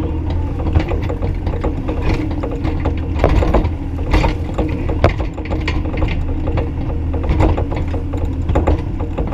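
Bobcat E35i compact excavator's diesel engine running steadily under many irregular metallic clicks and clanks from the working machine.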